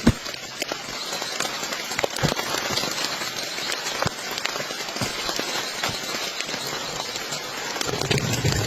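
Steady rain falling, an even hiss with scattered sharp taps, the loudest just at the start.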